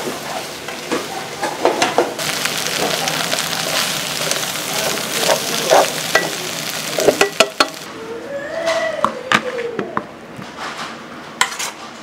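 Potatoes, ham and onion frying in a pan, sizzling steadily while being stirred with chopsticks. The sizzle drops away about eight seconds in, after a few sharp clicks and knocks, and a few more clicks come near the end.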